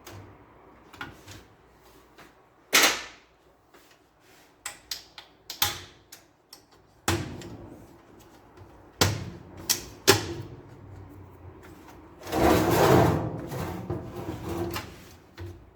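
Irregular clicks, knocks and clatter of hard plastic printer parts being handled. There is a loud knock about three seconds in, a run of knocks about seven to ten seconds in, and a longer rough, scraping stretch from about twelve seconds in.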